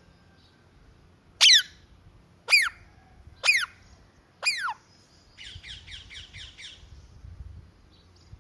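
Rose-ringed parakeet calling: four loud screeches about a second apart, each falling sharply in pitch, then a quicker run of about seven softer notes.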